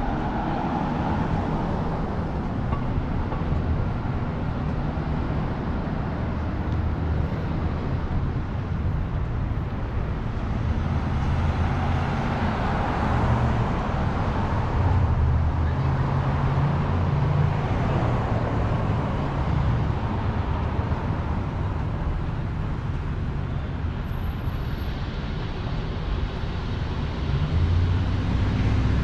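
Downtown street traffic: vehicle engines running with a steady low hum and tyre hiss, swelling as vehicles pass, most clearly about twelve seconds in and again near the end.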